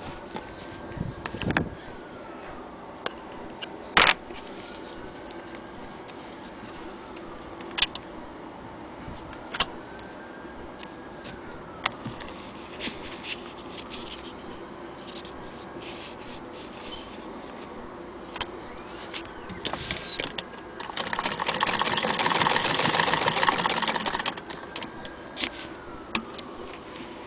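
Scattered clicks and knocks of the Singer 99K hand-crank sewing machine being handled as fabric is set under the presser foot. About 21 seconds in, the machine is cranked and stitches for about three seconds with a rapid, even clatter, the loudest sound here. A faint tone rises and falls every few seconds in the background.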